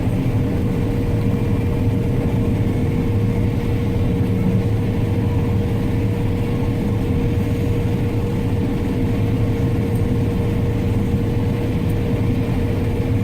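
Heavy farm harvest machinery running steadily: a constant low engine drone with a steady whine over it.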